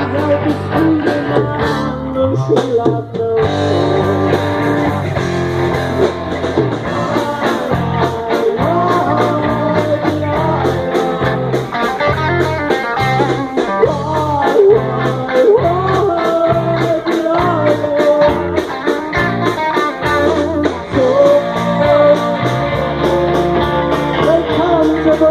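Live rock band playing an instrumental break, with a lead guitar bending notes over bass and a steady drum beat.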